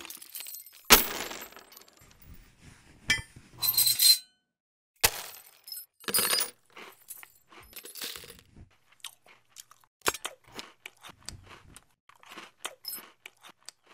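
Loose metal nails clattering and clinking against each other and the pot and plate, in a series of sharp separate rattles and clicks, some with a short metallic ring. The loudest clatter comes about a second in, followed by smaller scattered ticks.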